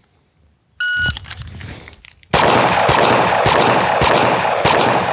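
A shot timer beeps once, then about a second and a half later a .40 caliber pistol fires five shots a little over half a second apart, drawn from the holster. The shots echo and ring on between each one.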